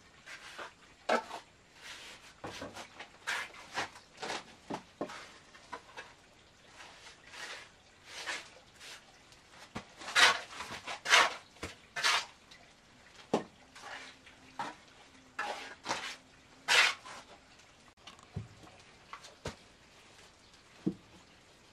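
Steel trowel scraping mortar and knocking against concrete blocks in short, irregular strokes, the loudest ones coming around halfway through.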